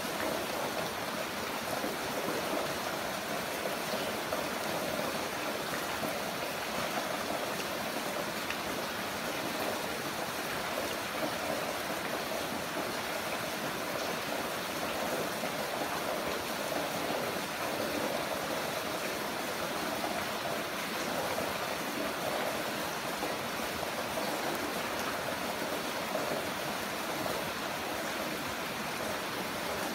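Heavy rain falling steadily: an even, unbroken hiss of water.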